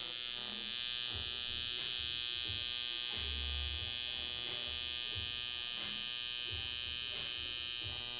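Coil tattoo machine buzzing steadily as it runs against skin, a high, even buzz with no breaks.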